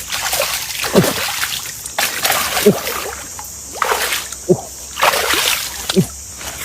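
Water splashing at the surface in a repeating pattern, about four times, each splash ending in a short falling bloop, as a snakehead fishing lure is worked across the water.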